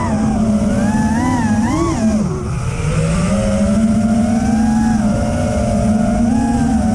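FPV freestyle quadcopter's EMAX ECO 2306 1700 kV brushless motors and propellers whining, the pitch rising and falling with the throttle. It dips briefly about two seconds in, then holds a steadier buzz.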